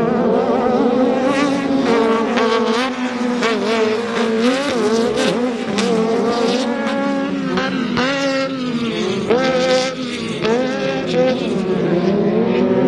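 Several off-road race trucks and buggies running hard on a dirt track, their engines overlapping and revving up and down as they accelerate through and out of the turns, with repeated rising revs about two-thirds of the way through.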